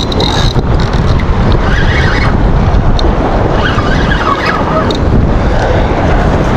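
Strong wind buffeting the microphone in a steady low rumble, with waves washing against the jetty rocks.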